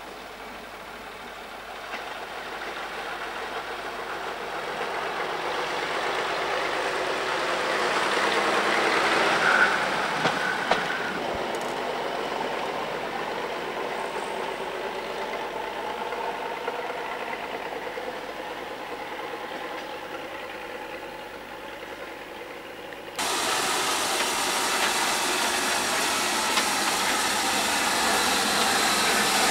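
A diesel railcar approaching and running past on narrow-gauge track, its engine and wheels on the rails swelling to a peak about ten seconds in and then fading. At an abrupt cut near the end, a steam locomotive standing and hissing steam.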